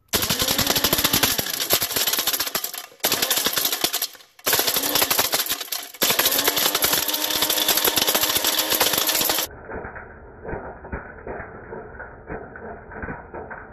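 Personal bullet-style blender's motor running in several bursts while a plastic credit card is chopped, the card pieces clattering rapidly against the clear plastic cup. The blender cuts out briefly twice, about 3 and 4 seconds in. Near the end the sound turns into a quieter, duller, slowed-down clatter, as in slow-motion playback.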